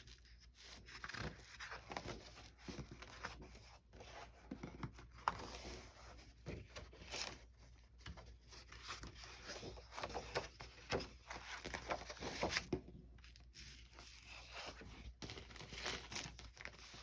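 Paper rustling and crinkling in irregular bursts as vintage paper doll books and sheets are handled and shuffled.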